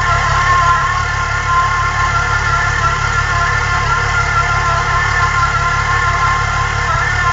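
Supercharged VR6 six-cylinder engine idling steadily, with a steady high whine over the low idle.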